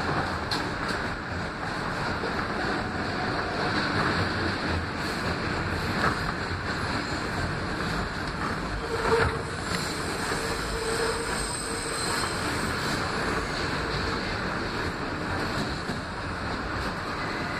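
NYC subway R160B Siemens train running through a tunnel: a steady rumble and hiss of wheels on rail heard from inside the car. About halfway through there is a single knock, followed by a faint steady tone for a couple of seconds.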